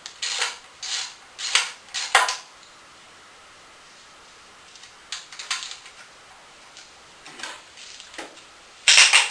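Metal hand tools and small engine parts clinking and clattering as they are handled: a quick run of knocks at first, a pause, then scattered clinks and a louder clatter near the end.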